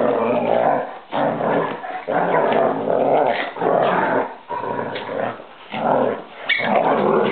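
A German Shepherd and a small dog play-fighting, growling in a string of rough bouts of under a second each, with short breaks between them.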